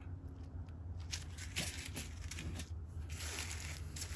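Small plastic bags of diamond-painting drills being handled: crinkling plastic with light clicks, over a steady low hum.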